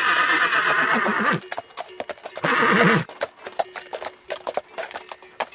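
Horse whinnying: a long quavering neigh in the first second and a half, then a shorter one about two and a half seconds in, with hooves clopping throughout.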